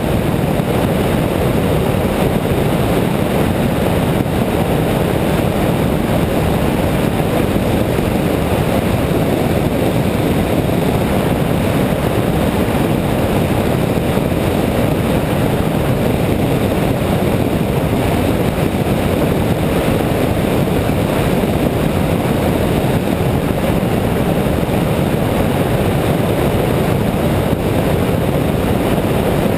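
Steady rush of wind and road noise over a hood-mounted camera on a moving car, a dense, unbroken roar with no distinct engine note.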